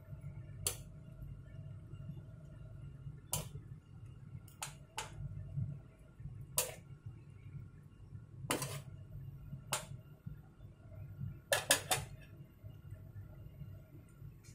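A spoon stirring noodles in a pot, knocking against the pan about ten times at uneven intervals, with three quick knocks close together near the end. Under it runs the steady low rumble of the pot boiling hard on a gas burner.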